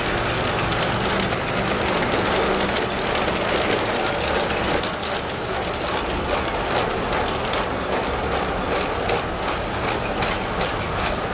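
Playmobil toy train running close by on its plastic track: a low motor hum as the locomotive passes in the first seconds, then a long string of plastic freight wagons rolling past with rapid, ratchet-like clicking of the wheels over the track.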